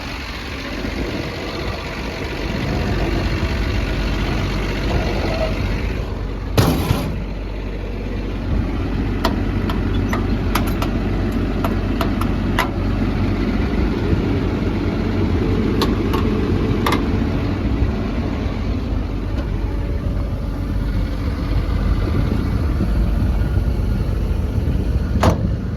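Cummins diesel engine of an XCMG XE210CU excavator idling steadily, heard up close, running with no blow-by. A few sharp clicks sound over it, the loudest about seven seconds in and just before the end.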